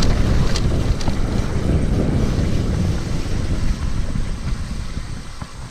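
Wind buffeting the microphone of a riding mountain biker's camera, a loud low rumble with a few sharp rattles from the bike on the trail. It dies down over the last second or two as the bike slows.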